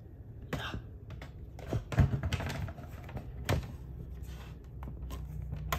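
Handling noise as a camera and tripod are moved and set in place: scattered clicks and knocks, the loudest about two seconds in, over a low steady hum.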